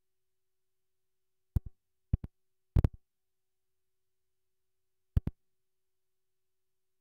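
Camera handling noise: short knocks on the camera body, mostly in quick pairs, four times, between stretches of near silence with a faint steady tone.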